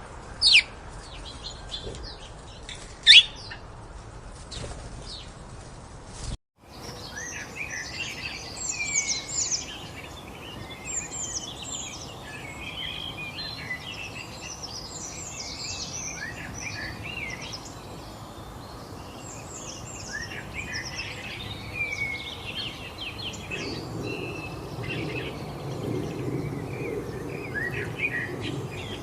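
Birds calling. A few loud, sharp calls that fall steeply in pitch come first, two of them standing out. After a brief break, a busy chorus of many small birds chirping and twittering over one another follows.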